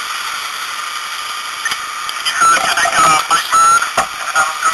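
A steady hiss, with loud, garbled voice transmissions over a fireground two-way radio breaking in about two seconds in and coming in short bursts to the end.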